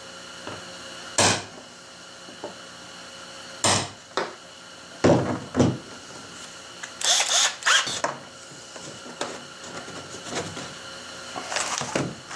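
A hammer striking a center punch on a kayak's plastic hull: several sharp taps over the first six seconds. Then a short burst of a power drill boring a hole through the hull, with more handling clatter near the end.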